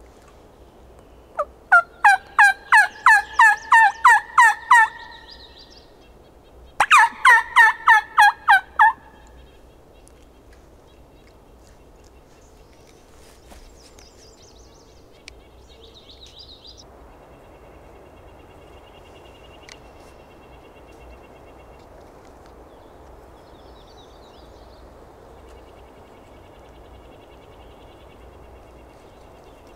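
Wild turkey yelping: a series of about a dozen loud, evenly spaced yelps, then a second series of about eight a couple of seconds later, each note dropping in pitch.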